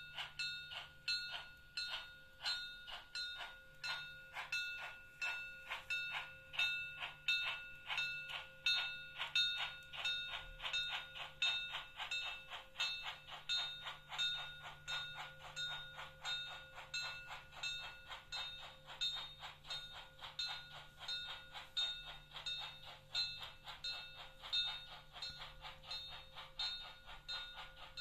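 Märklin class T3 H0-scale model steam locomotive giving a rhythmic steam chuffing sound, about two to three chuffs a second, slowly quickening and growing a little fainter.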